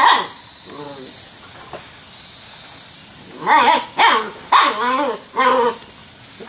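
A young puppy barking at a scorpion in short, pitched yaps: one at the start, a weaker one about a second in, then a run of four from about three and a half seconds in.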